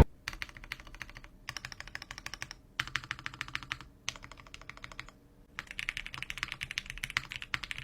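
Custom ai03 Vega mechanical keyboard with GMK keycaps and frankenswitches being typed on fast, a dense run of key clicks in several bursts broken by short pauses.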